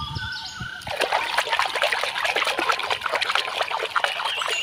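A hand splashing and swishing in a plastic tub of soapy water, washing a small plastic toy animal. The splashing starts suddenly about a second in and goes on as an irregular wet patter.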